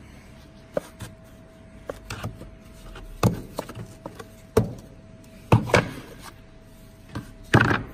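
Thick cut plastic letter pieces being handled on a CNC router's slotted table: irregular knocks and clatters as they are picked up, turned and set down, the loudest in the second half, over a faint steady hum.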